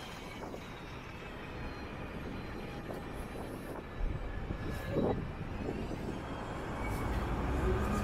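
City street traffic going by, with wind buffeting the microphone. The low wind rumble sets in about halfway through and grows stronger toward the end.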